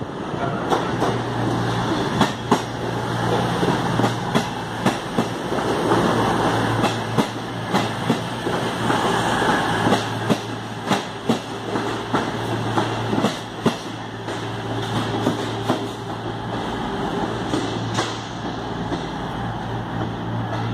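CrossCountry Voyager diesel multiple unit running through the platform close by: a steady low hum from its underfloor diesel engines, with the wheels clicking over rail joints in a clickety-clack of one or two clicks a second.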